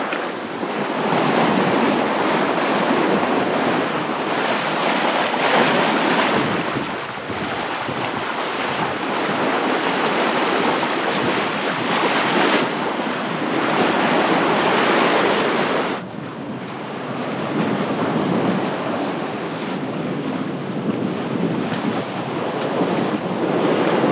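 Water rushing and splashing along a Pearson 35 sailboat's bow as it sails through choppy water, with wind buffeting the microphone. The sound shifts abruptly a few times.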